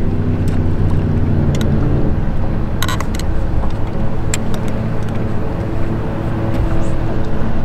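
Steady low hum of a boat motor running, its tone shifting about two seconds in, with a few light clicks over it.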